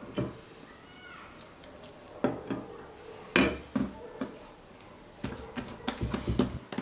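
Scattered light knocks and taps from hands folding and pressing buttered dough on a wooden tabletop, with a sharper knock about three and a half seconds in and a quick run of taps near the end.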